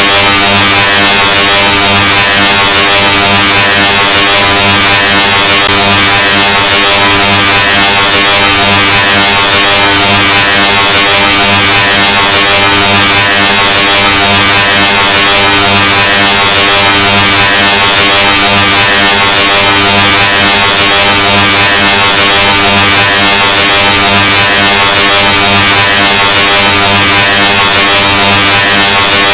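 A steady, extremely loud, distorted buzz at full volume with a low droning pitch, clipped and smeared with harsh hiss. It is the "Loudness 2.0" ear-splitting sound effect played in a continuous loop.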